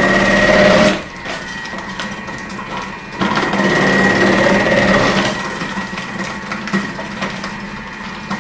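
Thermomix TM6 motor spinning the Cutter attachment's thick grating disc, grating carrots pushed down the feed tube, a steady hum with a high whine. It gets louder twice, for about a second at the start and again for about two seconds from three seconds in, as the carrots are pressed onto the disc.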